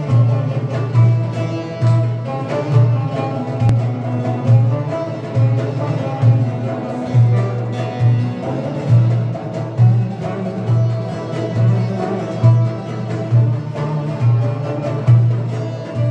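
Turkish folk music played on two bağlamas (long-necked saz lutes) carrying the melody, over a frame drum and a darbuka keeping a steady beat.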